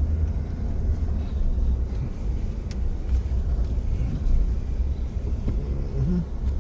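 Low steady rumble, with a faint short voice-like sound near the end.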